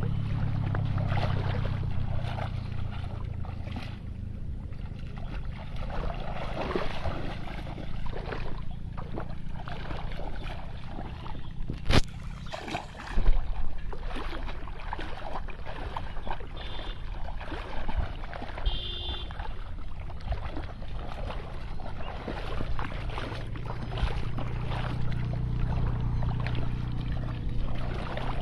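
Shallow muddy water splashing and sloshing as a person wades and grabs at fish by hand, over a steady low rumble, with a couple of sharp knocks near the middle.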